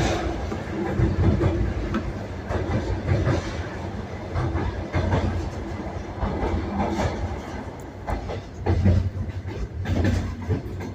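Moving passenger train: a steady rumble of wheels on the rails with irregular clacks over the rail joints.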